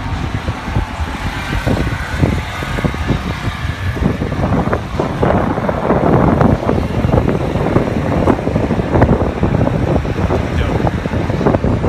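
Car engines running, mixed with wind buffeting the microphone. The sound gets busier and louder from about four seconds in.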